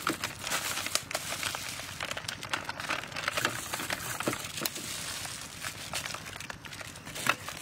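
Plastic seasoning packet crinkling and rustling as powder is shaken out of it, with a steady scatter of small crackles and clicks.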